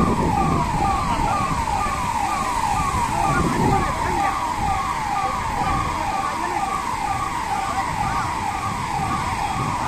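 Electronic emergency siren sounding a rapid falling sweep, about two sweeps a second, over a steady low rumble.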